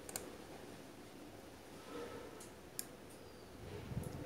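Faint, scattered small clicks of a wire lead being pushed into its clip socket on a CRT TV's flyback transformer, with a soft low thump near the end.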